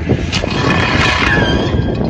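Van engine running under load as it drives across grass, with a steady rushing noise over it; a sharp click about a third of a second in.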